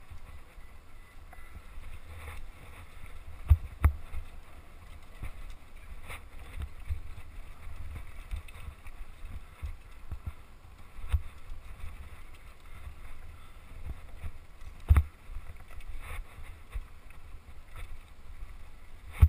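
Mountain bike descending rough dirt singletrack: the bike rattles over the trail, with sharp knocks as it hits bumps, loudest four times. A low wind rumble on the GoPro mic runs underneath.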